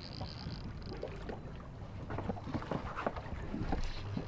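Small waves lapping and slapping irregularly against a boat's hull. A fast high ticking in the first second or so, and a low steady hum comes in near the end.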